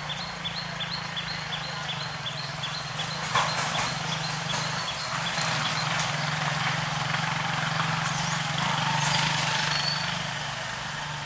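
Outdoor ambience: a steady low hum under a hiss, with a short high chirp repeated about three times a second through the first half, and a few faint clicks.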